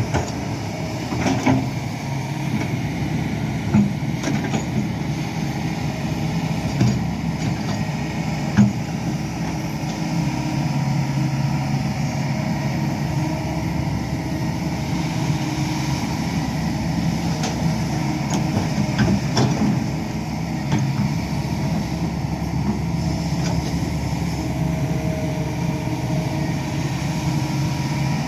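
Hydraulic excavator's diesel engine running steadily while it works, with a few sharp knocks now and then.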